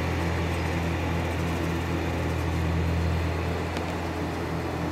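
Engine of a Marine Travelift mobile boat hoist running with a steady low drone as the hoist drives while carrying a boat.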